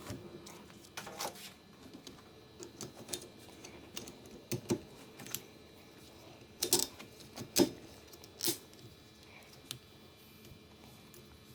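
Scattered sharp plastic clicks and taps as a windshield wiper blade and its wiper arm are handled, a few of them close together and loudest about two-thirds of the way through.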